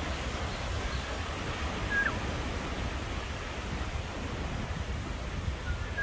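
Wind through a leafy forest canopy, a steady rustling hiss over a low rumble of wind on the microphone. A bird gives a brief high chirp about two seconds in and again near the end.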